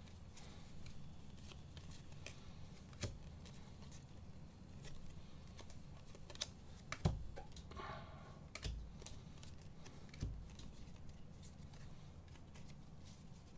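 Faint clicks, flicks and slides of a stack of Donruss Elite football trading cards being handled and flipped through one by one, with a few soft thumps against the table.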